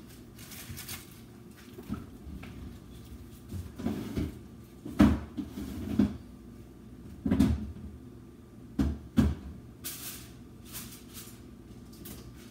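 Kitchen cabinet doors being opened and shut, a series of knocks and thumps with the loudest clustered in the middle few seconds.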